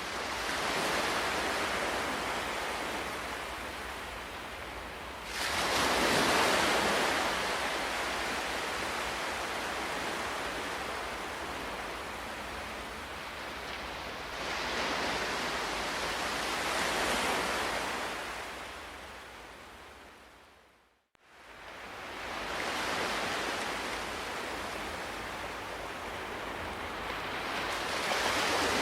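Sea waves surging in and washing back, with a fresh swell every several seconds. About two-thirds of the way through, the sound fades briefly to silence and then comes back.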